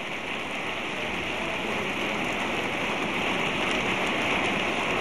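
Large audience applauding steadily, growing slightly louder toward the end.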